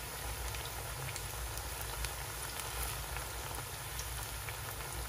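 Plantain slices shallow-frying in hot oil in a frying pan: a steady sizzle with scattered small pops.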